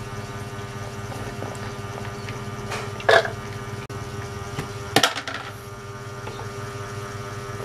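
Chopped orange peel poured and scraped from a plastic bowl into a plastic jar: a few short rustles and knocks, the sharpest about five seconds in, over a steady low background hum.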